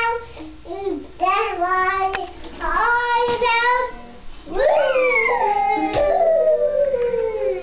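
A toddler singing in short wordless phrases, then a long note that slides down in pitch over about three seconds near the end. A brief knock about six seconds in.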